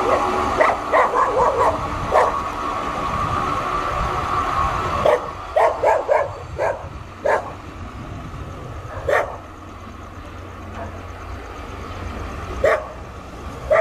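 A dog barking repeatedly: clusters of short barks in the first couple of seconds and again around five to seven seconds in, then single barks. Under them a steady machine drone from the track fades away about five seconds in.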